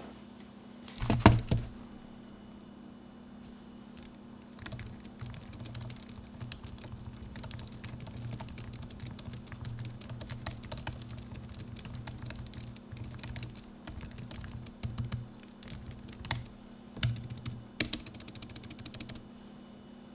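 Typing on an Apple Magic Keyboard: fast runs of light clicks from its low-profile keys, with a short loud knock about a second in before the typing begins.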